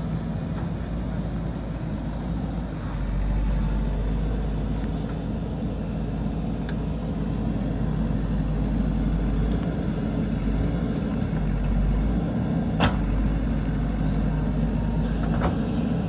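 JCB backhoe loader's diesel engine running steadily under load as the backhoe arm digs and lifts a bucket of soil, a little louder about three seconds in. A few short knocks sound over it, the sharpest about three quarters of the way through.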